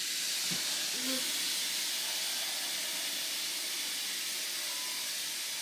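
A steady, even hiss that starts abruptly and holds at one level throughout.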